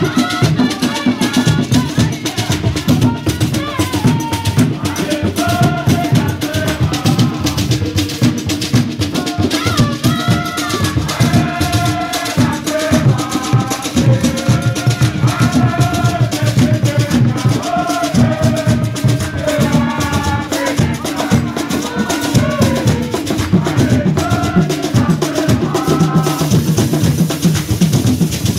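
Live Ewe bobobo (akpessé) music: hand drums and percussion playing a dense, steady rhythm, with voices singing a melody over it, most clearly in the middle of the stretch.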